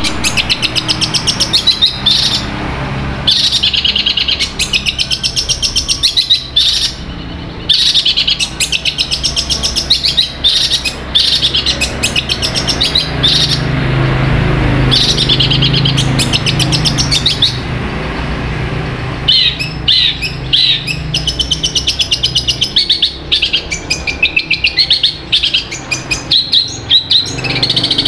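Long-tailed shrike (cendet) singing in long runs of rapid, repeated chirping notes, a song built from imitated calls. The phrases are separated by brief pauses, over a steady low hum.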